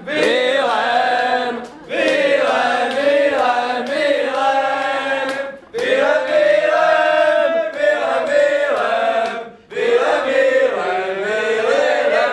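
A group of voices singing a club anthem together in a chant-like unison, in four long phrases with short pauses between them.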